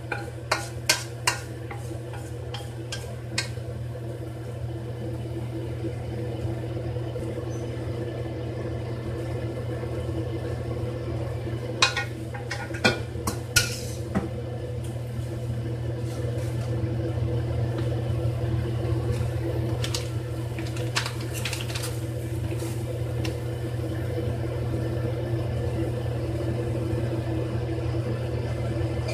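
Wooden spatula knocking and scraping against a wok as stir-fried udon noodles are pushed out onto a plate, in short clusters of sharp knocks in the first few seconds and again around twelve seconds in. Under it runs a steady low hum throughout.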